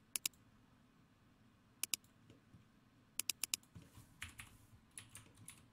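Clicking of a computer mouse and keyboard during desk work: a quick pair of clicks at the start, another pair about two seconds in, a fast run of four about three seconds in, then softer scattered clicks near the end.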